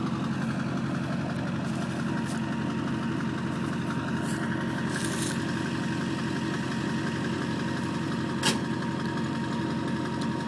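Duramax 6.6-litre V8 turbodiesel idling steadily through a large exhaust tip, with one sharp click about eight seconds in.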